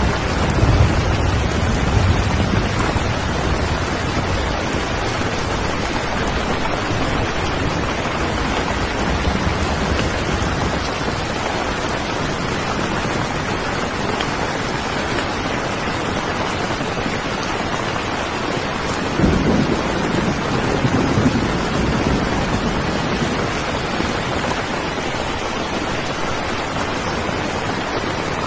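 Steady rain, with a low thunder rumble at the start and another about twenty seconds in.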